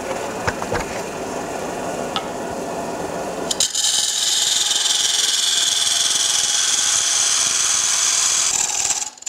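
A wood lathe spins a hollowed canister blank while a few light knocks sound as a heavy scraper is laid on the tool rest. About a third of the way in the scraper starts cutting inside the canister, giving a loud, steady high hiss of the tool shaving the inner sidewall, which breaks off briefly near the end.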